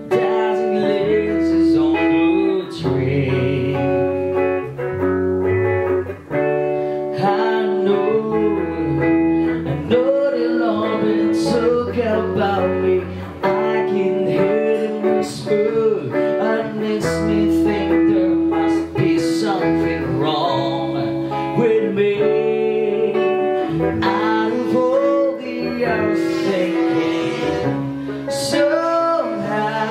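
A small live band playing a rock song: a male singer over electric guitar and electric bass guitar, with the bass notes steady underneath.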